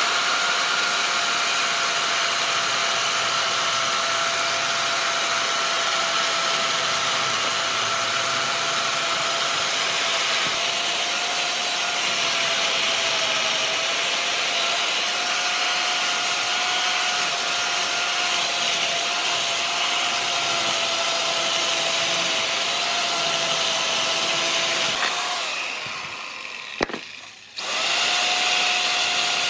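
An electric power tool runs steadily with a constant high whine over a hiss of wood being worked. It winds down and stops about 25 seconds in, then starts up again near the end.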